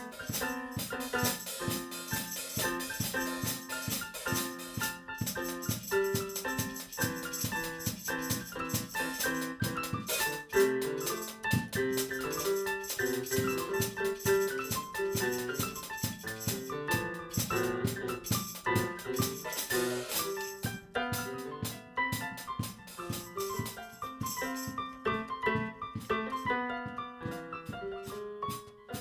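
Instrumental music led by piano or electric keyboard, playing a busy run of notes with some percussion.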